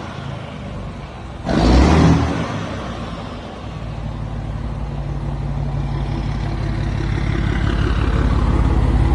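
Scania 112 truck's straight-six diesel with a loud-rumbling exhaust. A short loud burst comes about a second and a half in, then a steady deep engine rumble that grows gradually louder.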